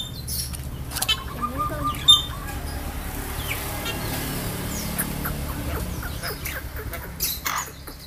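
Javan myna giving short chirps and calls, with a sharper one about two seconds in and a few more near the end, over the steady low hum of a motorcycle engine running close by.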